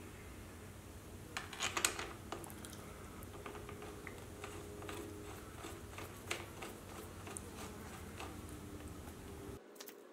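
Small clicks and taps of hands fitting a new aftermarket clutch lever and its parts onto the motorcycle handlebar's clutch perch, with a quick cluster of louder clicks about two seconds in and single ticks after.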